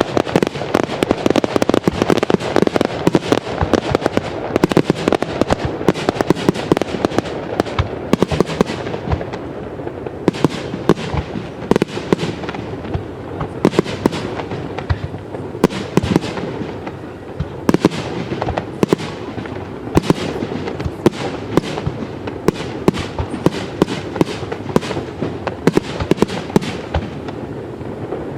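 Fireworks display in full swing: shells bursting in rapid, overlapping bangs with crackle. It is a dense wall of reports for the first several seconds, then continues as many separate, sharp bangs.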